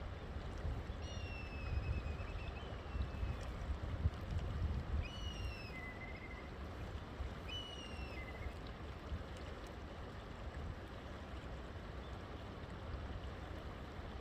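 Steady rush of a flowing river, with a bird giving three short whistled phrases, each falling in pitch, in the first half.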